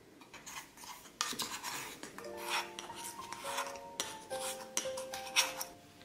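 A spoon scraping and knocking against a stainless steel grinder cup as ground dried-fruit powder is scooped out: a string of short rasping scrapes and taps. Soft background music with held notes comes in about two seconds in.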